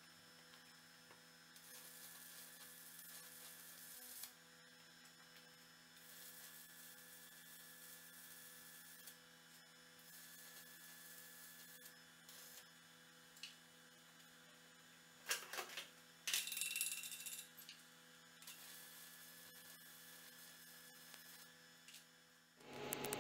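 Faint steady electrical hum with stretches of soft hiss coming and going, and a few sharp metallic knocks about fifteen to seventeen seconds in.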